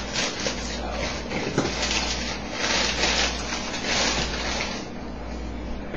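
Plastic bag of baby spinach rustling and crinkling as leaves are pulled out by hand, in irregular crackles that die down about five seconds in. A low steady hum runs underneath.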